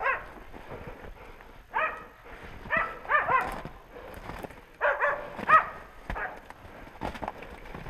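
Hunting dogs barking in short runs of two or three barks, the sound of dogs baying at a boar. Snow-laden brush and the hunter's footsteps rustle and crunch between the barks.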